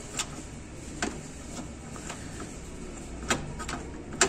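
Scattered light clicks and taps of a screwdriver tip against plastic parts inside an Epson L3110 inkjet printer's paper feed, probing around the paper sensor for a lodged foreign object, over a low steady hum.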